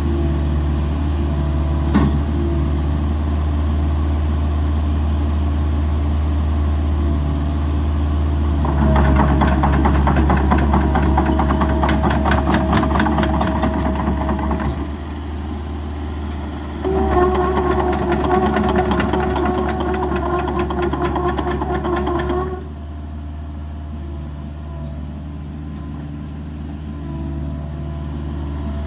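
Kubota RX-505 mini excavator's diesel engine running steadily, working up twice under load: about a third of the way in with a fast, dense clatter, and again about two-thirds through with a steady hydraulic whine, before settling back to a quieter run.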